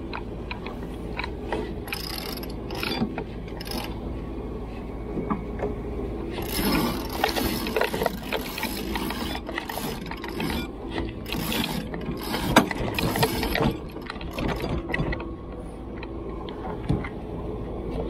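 Yacht's inboard engine running steadily under way, with many short mechanical clicks and rattles over it, busiest through the middle.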